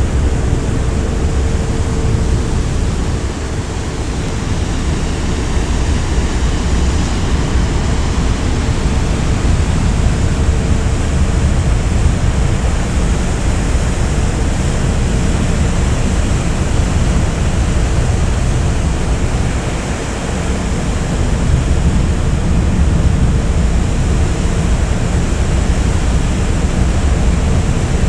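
A ferry under way at sea: a steady rush of wind and sea over a low rumble from the ship, with a faint steady hum.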